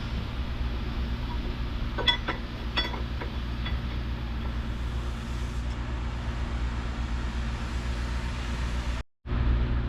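An engine running steadily at idle, a low, even hum, with a few light clicks about two to three seconds in.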